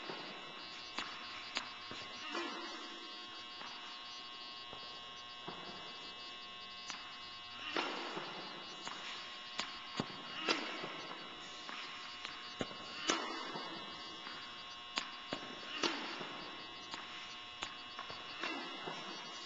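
Tennis balls being struck by a racquet and bouncing on an indoor hard court: a series of sharp, irregular pops that echo in a large hall, over a steady electrical hum.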